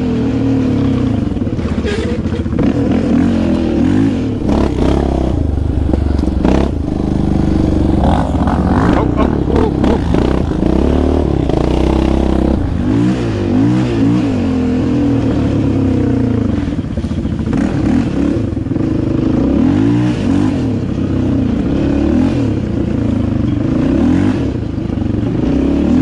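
Sport quad engine revving up and down with the throttle while the quad is ridden along a rough dirt trail, with occasional knocks from the bumps.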